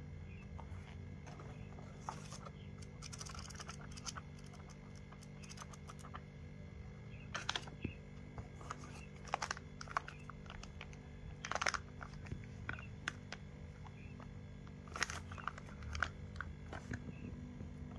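Camera box and packaging being handled during an unboxing: scattered clicks, taps and crinkling rustles, a few louder ones about two-thirds of the way through and near the end, over a steady low hum.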